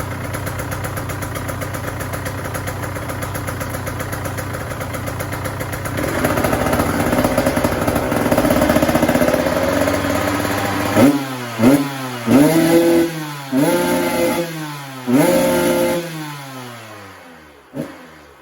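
2023 KTM 125SX two-stroke single on its stock exhaust, running at a steady high idle, then held at a higher speed from about six seconds in. From about eleven seconds it is revved in about five quick blips, each falling back in pitch, then it winds down and dies away near the end with one short pop.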